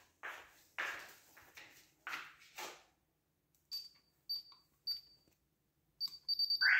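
Slippered footsteps on a tiled floor, then a Paradox alarm keypad beeping as its buttons are pressed: three short high beeps about half a second apart, then a quicker run of beeps near the end. A louder noisy sound starts just before the end.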